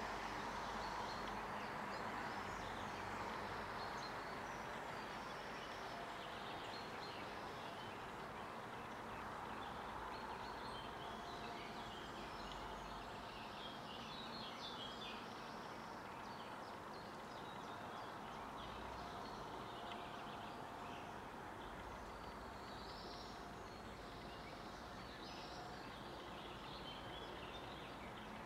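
Rural outdoor ambience: a steady distant hiss with scattered short chirps of small songbirds, busiest around the middle and again near the end.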